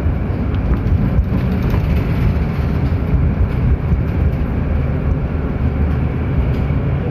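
City bus running, heard from inside the passenger cabin: a steady low rumble of engine and road noise as it drives.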